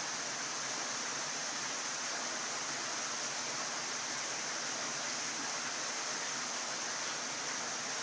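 A steady, unbroken rushing hiss of running water.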